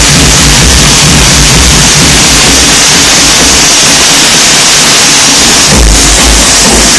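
Loud, distorted electronic dance music over a club sound system, mostly a hissing wash of noise. The thumping bass drops out for a few seconds in a breakdown, then comes back with a crash about six seconds in.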